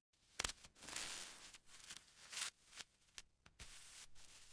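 Near silence: faint room tone with a few soft clicks and two brief quiet hisses.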